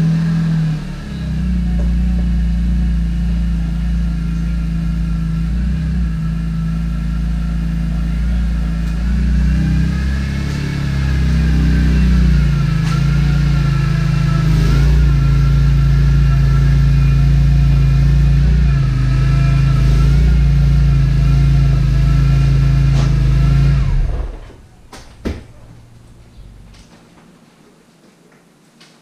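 BMW E46 M3's straight-six engine starts and runs steadily, a little louder from about halfway, then shuts off near the end.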